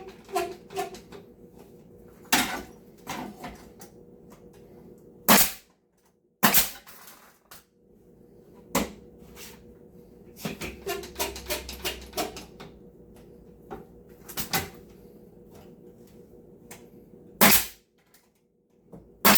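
Nail gun firing nails into a wooden cabinet face frame: several sharp shots at irregular intervals, with smaller knocks and clicks of handling between them.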